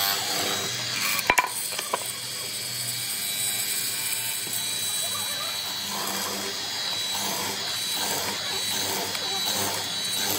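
Benchtop hollow-chisel mortiser running, its square chisel and auger plunging repeatedly into a wooden board and chewing out chips. There are a couple of sharp knocks just over a second in.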